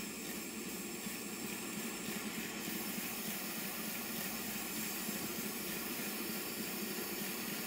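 A 'Chub' model live steam locomotive running on a rolling road, giving a steady hiss of steam.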